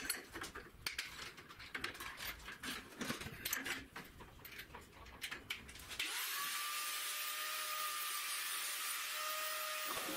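Small clicks and knocks of parts being handled and fitted onto a motorcycle's chrome front-fork tube. About six seconds in, a steady hiss with a faint high whistle starts abruptly and cuts off near the end.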